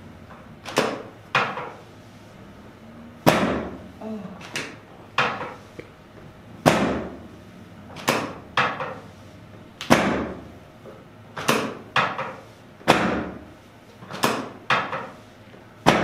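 Drop sections of a chiropractic adjusting table snapping down under the chiropractor's thrusts: a series of sharp wooden-sounding clacks, mostly in pairs about half a second apart, repeating every second or two.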